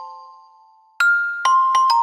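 Electronic phone ringtone melody in a bell-like mallet timbre. The last note of one phrase rings out and fades, then about a second in the tune starts over with a quick run of notes.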